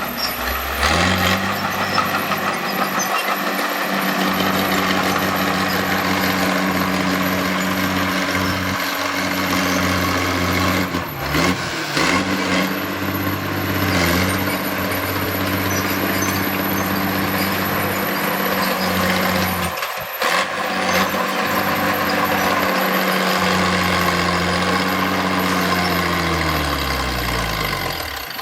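Heavy diesel engine of earth-moving machinery running steadily under load, its revs dipping briefly a couple of times and falling away steadily near the end.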